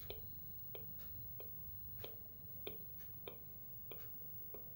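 Vocal mimicry of a person walking in shoes: faint, evenly spaced mouth clicks, each one a footstep, about one and a half a second.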